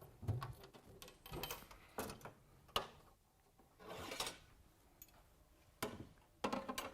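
A metal tool box being handled and opened: a string of irregular clicks, knocks and rattles, with a brief scraping rustle about four seconds in.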